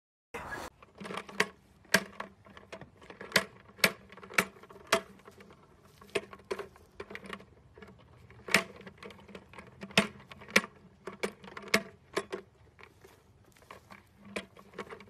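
Irregular sharp knocks and clatters of a plastic bucket as a donkey mouths it and knocks it about on gravel, about one or two a second.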